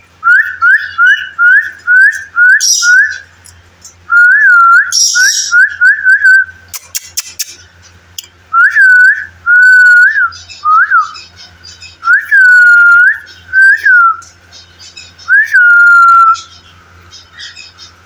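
A person whistling to a male cockatiel: first a run of short quick notes, about three a second, then longer swooping whistles at much the same pitch. Cage birds chirp between the phrases, with two sharp squawks in the first five seconds.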